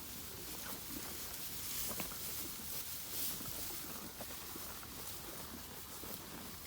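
Cattle eating hay: a steady crackle of hay being pulled, rustled and chewed, with many small scattered clicks.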